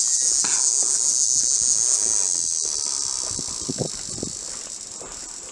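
A chorus of insects, a steady high-pitched buzzing drone, that fades gradually from about two seconds in.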